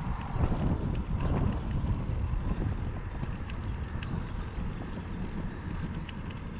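Wind buffeting the microphone: a steady low rumble, strongest in the first second and a half, with no other clear sound standing out.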